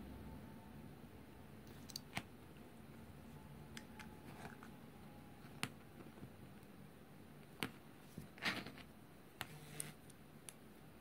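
Small aluminium and rubber engine-mount parts handled by hand: a rubber vibration-isolating mount pressed into its aluminium cup and its threaded stud turned into an aluminium bracket. Faint scattered clicks and taps, with one brief louder rub past the middle.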